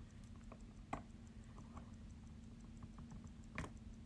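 Faint, irregular clicks of small watchmaker's tools on a watch movement while working at a tight ratchet wheel screw, with two sharper clicks about a second in and near the end.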